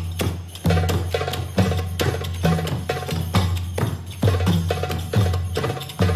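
Belly dance music: a Middle Eastern-style percussion rhythm with a strong, deep beat a little under once a second and lighter, sharp drum strokes between.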